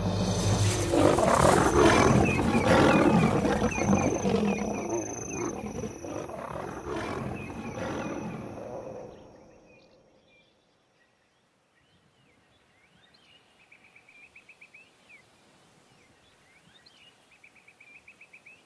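Lions snarling and roaring in a violent clash, loud for several seconds and fading away at about nine seconds in. Then a quiet night stretch with faint, evenly repeated chirping trills.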